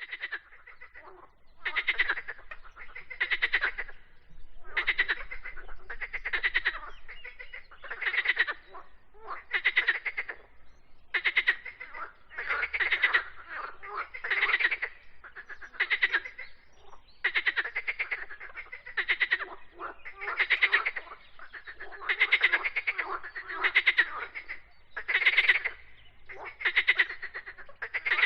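Frogs croaking: a steady series of rattling, rapidly pulsed croaks, each under a second long, repeating about every one and a half seconds.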